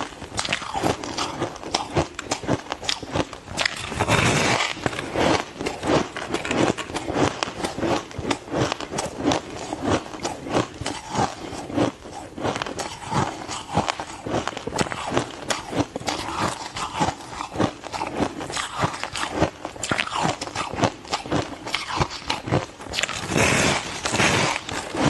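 Ice being bitten and chewed: dense, irregular crunching and cracking throughout, with louder, harder crunches about four seconds in and again near the end.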